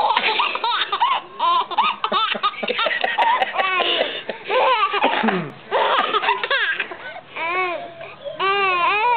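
A four-month-old baby laughing in repeated runs of high squealing giggles, each rising and falling in pitch, set off by an adult's coughing.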